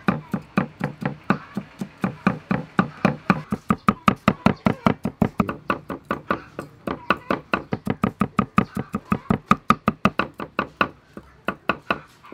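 Cleaver mincing garlic on a thick round wooden chopping board: quick, even knocks, several a second, stopping shortly before the end.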